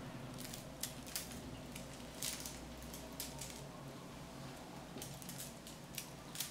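Scattered light clicks and scratches, about ten of them spread irregularly, as a kitten steps and paws about on a glass tabletop and bats at a wand toy, over a faint steady low hum.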